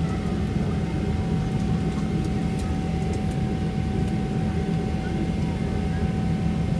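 Boeing 777-300ER's GE90 jet engines running steadily: a continuous low rumble with a steady whine on top.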